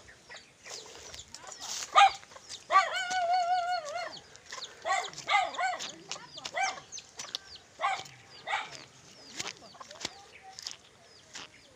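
Rooster crowing: one long, slightly wavering crow about two to four seconds in, followed by several shorter calls.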